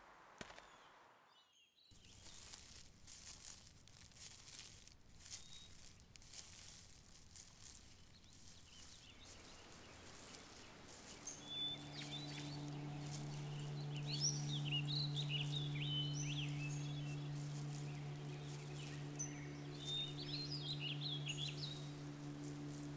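Rustling steps through dry leaf litter for the first half, then birds chirping. A low, steady drone note comes in about halfway and holds to the end.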